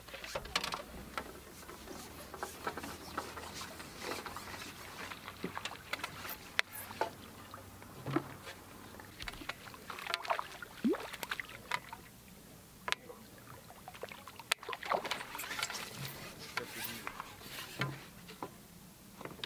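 Small water sounds, trickling and light splashing, with scattered clicks and knocks from fishing gear being handled at the water's edge.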